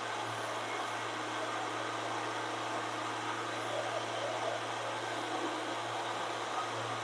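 VEVOR 13-inch benchtop thickness planer running steadily with no board in it, its motor and cutterhead giving an even drone with a hiss over it.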